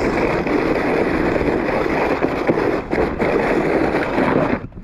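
A sled sliding fast down packed snow: a steady scraping hiss of the sled's bottom on the snow, mixed with wind on the microphone. It drops away sharply for a moment near the end.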